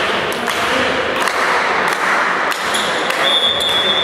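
Volleyball referee's whistle: one long, steady blast starting about two and a half seconds in, the signal to serve. Under it, a steady hall din of voices and a few thumps of the ball.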